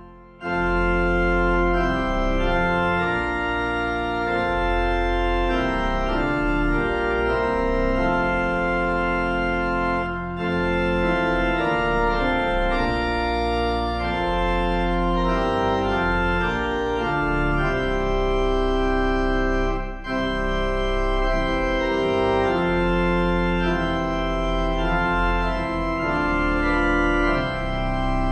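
Church organ playing a hymn tune in held chords, with short breaks between phrases about every ten seconds.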